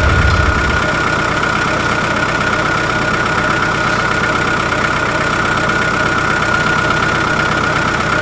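A motor running steadily, with a constant high whine over an even hum; a deeper rumble underneath stops about a second in.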